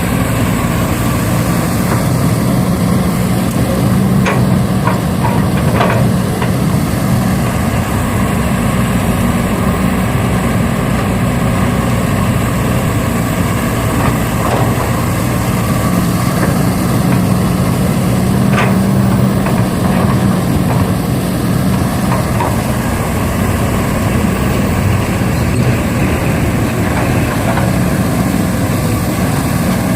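A truck-like engine running steadily at a low pitch, with a few light clicks now and then.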